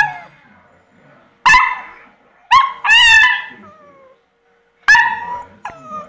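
Puppy barking: about five short, high-pitched barks with falling tails, spaced roughly a second apart, two of them close together about two and a half to three seconds in.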